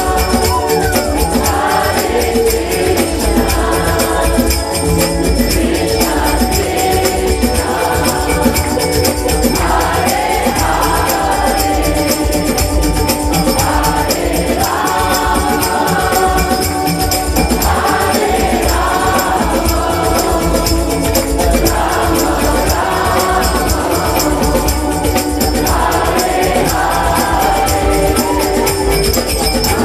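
Devotional kirtan chant: a large crowd singing together over harmonium and tabla, with a steady beat.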